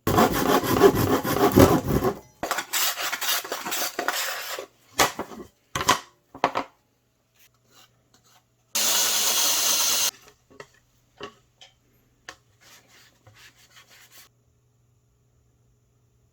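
Wood being worked by hand: a couple of seconds of dense rasping, then shorter strokes and a few sharp knocks, and about a second of steady loud hiss a little past the middle, followed by faint clicks.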